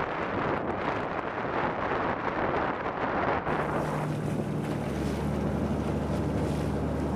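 Wind gusting on the microphone over water and a passing boat. About three and a half seconds in, the sound changes to the steady low drone of a Coast Guard 47-foot motor lifeboat's engines, with water rushing and splashing along the hull as a swimmer is towed alongside.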